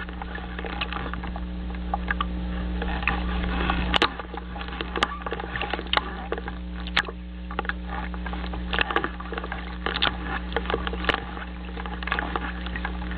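A steady low electrical hum from the nest-camera microphone, with irregular sharp clicks and crackles scattered over it. No loon calls.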